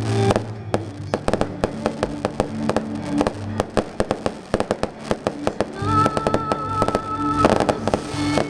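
Aerial fireworks exploding in rapid succession, many sharp bangs and crackles close together, with music playing underneath in held notes.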